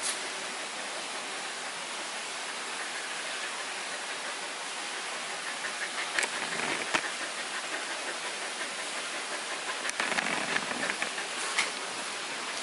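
Steady hiss of background noise, with a few faint clicks and ticks about halfway through and near the end.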